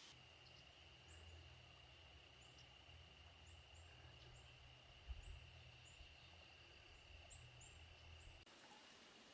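Near silence: faint outdoor ambience with a steady high-pitched drone and scattered small faint chirps over a low rumble. It changes abruptly about eight seconds in.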